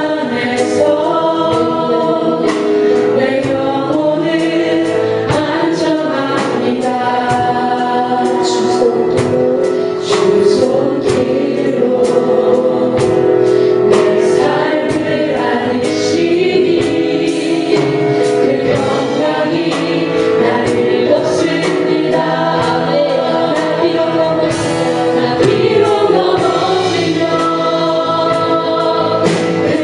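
A worship team and congregation singing a Korean praise song together, with band accompaniment and a steady beat.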